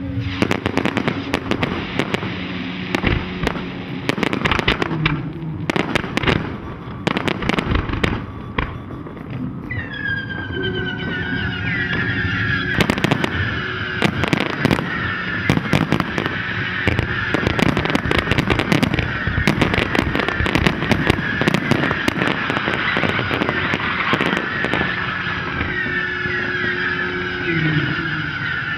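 Fireworks launching and bursting in rapid, overlapping bangs and crackles. About ten seconds in, high whistling joins the bangs and runs on, its pitch slowly falling.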